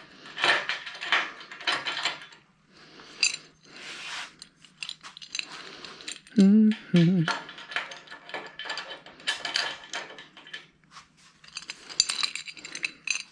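Small metal parts clinking and rattling as they are handled, a string of short, irregular clanks and clicks.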